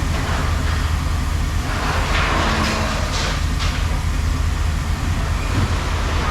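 An engine running steadily with a low, even rumble, and a few brief metallic rattles about two to three and a half seconds in.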